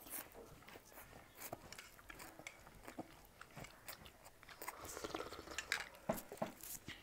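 Close-up eating sounds: chewing, wet mouth clicks and smacks, and slurping as noodles and soup are sucked in. The sounds are faint and irregular and thicken for a moment about five seconds in.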